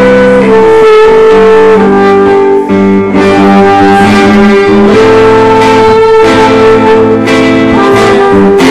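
Guitar music: a melody of long held notes over sustained chords, the notes changing about every second.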